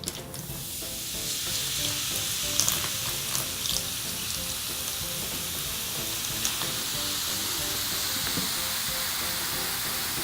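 Vinegar fizzing on ice cubes made of frozen baking soda and water: a steady hissing of bursting bubbles as the acid and alkali react and release carbon dioxide. The fizz swells over the first couple of seconds, with a few sharp crackles.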